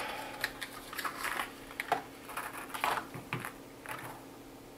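Hands handling a cardboard box of 9mm pistol cartridges and taking a round out: a run of small, irregular clicks and rustles.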